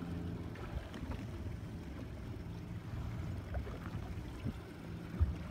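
Small fishing boat at sea: water lapping and gurgling against the hull, with a faint low motor hum that comes and goes, and a single knock about five seconds in.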